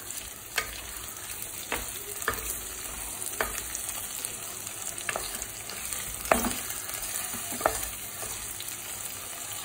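Sliced onions with crushed ginger and garlic sizzling in hot coconut oil in a clay pot while being sautéed. A wooden spatula stirs them, knocking and scraping against the pot now and then.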